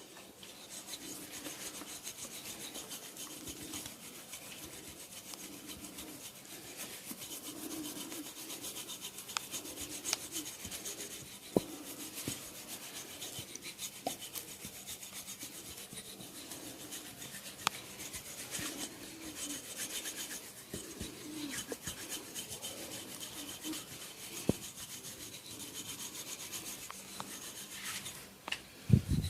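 Barber's hands rubbing and massaging a client's skin, a steady rubbing swish with a few faint sharp clicks, and a loud thump at the very end.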